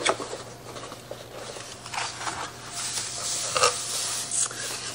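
Cardboard box being opened and hands rustling through its shredded paper packing, in short irregular scrapes and crinkles with a sharp snap at the start.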